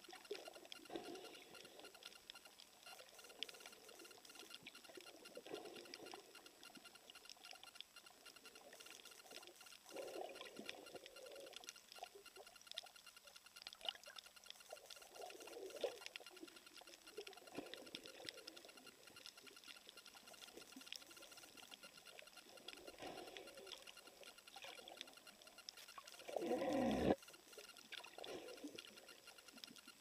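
Faint underwater sound picked up through a camera's waterproof housing over a coral reef: a steady fine crackle of clicks with soft swishing swells every couple of seconds. Near the end there is one louder, deeper gurgling rush that lasts under a second.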